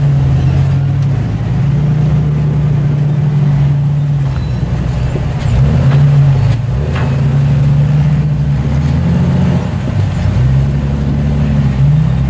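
Engines of rock-crawling Jeep Wranglers running at low revs, their pitch rising and falling as the Jeeps pick their way over boulders, with a few faint clicks.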